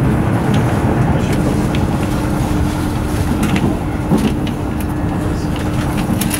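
Interior running noise of a Class 395 'Javelin' electric multiple unit at speed: a steady rumble of wheels on rail with a constant hum from the train's equipment and scattered light clicks.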